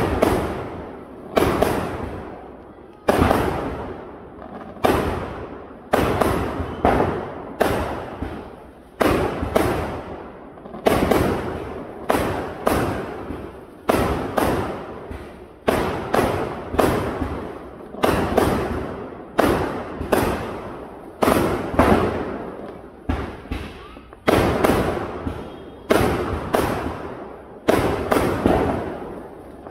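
Aerial firework shells bursting one after another, about one bang a second, each bang trailing off before the next.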